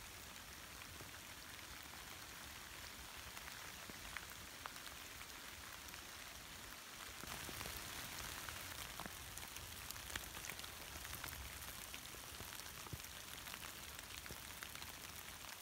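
Steady rain falling in a forest, countless small drop hits on leaves and ground making a soft hiss. It gets a little louder from about seven seconds in.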